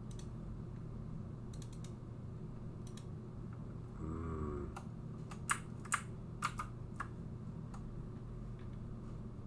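Computer keyboard and mouse clicking: a scattered handful of sharp clicks, several close together in the second half, over a steady low hum.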